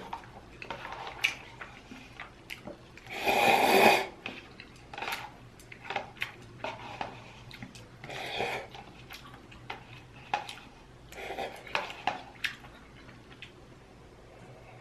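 Close-up eating sounds: noodles slurped from a paper cup with chopsticks, one loud slurp about three seconds in and a smaller one about eight seconds in, with chewing and small clicks of chopsticks against the cup in between.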